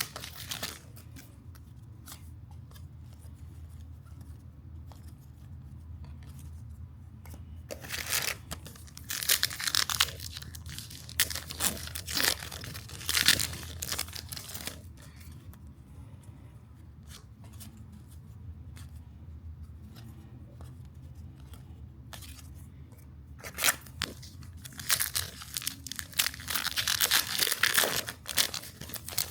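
Trading cards and foil pack wrappers being handled: a few bursts of tearing and crinkling, with quieter stretches between them over a steady low hum.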